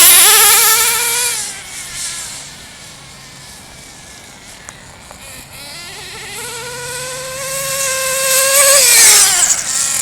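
Nitro RC car's small glow-fuel engine running at high revs as the car speeds away and fades to a faint drone. It then comes back, growing louder and rising in pitch, and passes close near the end, the pitch dropping as it goes by.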